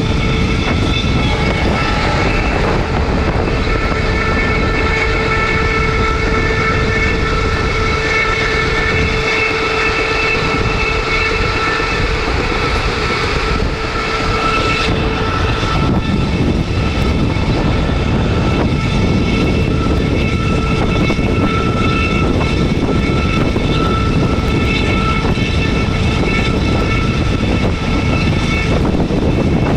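WDM-3A diesel-electric locomotive with its ALCO 16-cylinder engine working as it hauls the train: a loud, steady roar with high whining tones that come and go.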